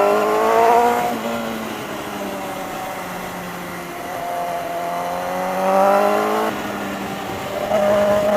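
Sport motorcycle engine pulling hard: the revs climb, drop suddenly about a second in, climb again through the middle and drop sharply again about six and a half seconds in, then hold steady.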